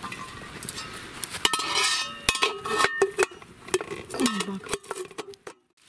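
Enamelled metal lid clinking and scraping against the rim of an enamel cooking pot as it is set on, a series of sharp metallic clinks with brief ringing. The sound cuts off suddenly near the end.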